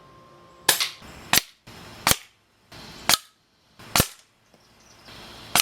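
Umarex Notos .22 PCP air rifle firing six sharp shots in quick succession, roughly one a second, with the background dropping out abruptly between shots.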